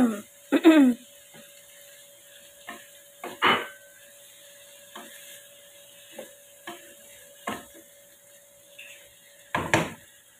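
Wooden spatula stirring and scraping raw chicken pieces around a nonstick wok, in irregular strokes about once a second, the loudest near the start and near the end, over a faint sizzle.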